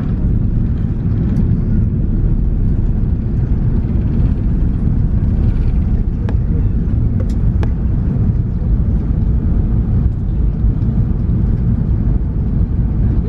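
Airbus A380 take-off and initial climb heard from inside the cabin: a steady low rumble of the engines and rushing air, with a few faint clicks in the middle.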